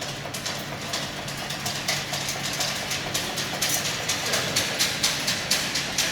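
Chain-link fence weaving machine running: a steady motor hum under a fast, regular mechanical clacking that grows louder.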